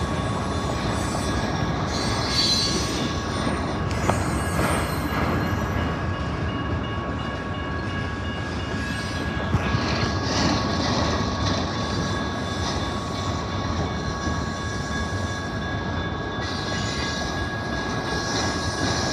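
Freight train of autorack car carriers rolling past: a continuous rumble of wheels on rail, with a thin steady squeal of the wheels held throughout.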